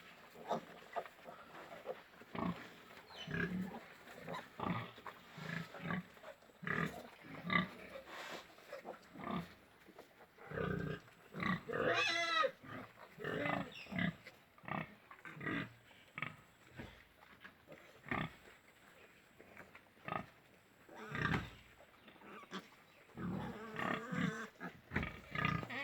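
Yorkshire pigs grunting over and over in short bursts. About twelve seconds in, one pig gives a longer, wavering squeal.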